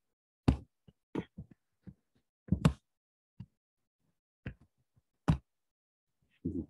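Stylus tapping and knocking against a tablet screen as short dashed strokes are drawn: a string of irregularly spaced sharp knocks with silence between them.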